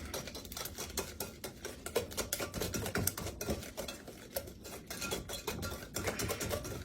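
A whisk stirring pie filling in a mixing bowl, with quick, irregular clicks and scrapes of the wires against the bowl.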